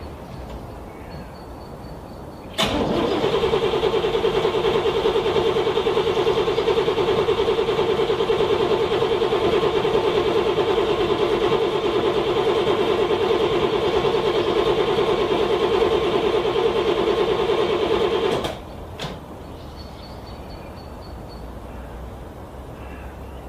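A car engine cranking on its starter in freezing cold for about sixteen seconds without catching, starting with a click about two and a half seconds in and cutting off suddenly near the end; a cold engine that will not start.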